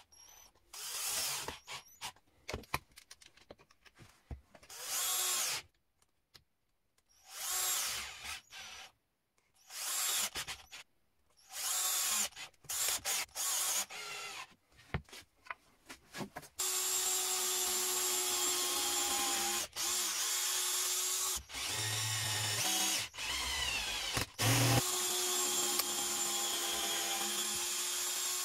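Parkside cordless drill-driver driving screws into metal hinges on wooden boards, running in short start-stop bursts with pauses between. From about halfway it runs in longer stretches of a few seconds with brief stops.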